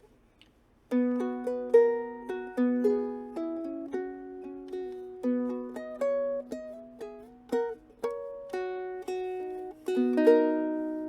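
오울공방 (Owl Workshop) Moul ukulele played solo in a sound test. A short fingerpicked melody of plucked notes and chords starts about a second in and ends on a chord left to ring out.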